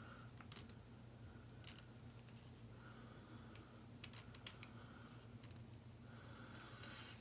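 Faint clicks and taps of small plastic and metal kit parts and a screw being handled during hand assembly of an RC car, a few clicks spread out with brief faint squeaks between them.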